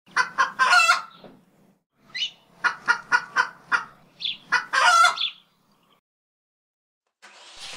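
Chicken clucking in two bouts of short clucks, each ending in a longer drawn-out call. Near the end a power tool starts up with a steady whine.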